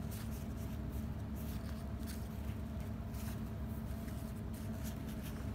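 Faint rustling and scattered light clicks of ribbon hair bows being handled, over a steady low hum.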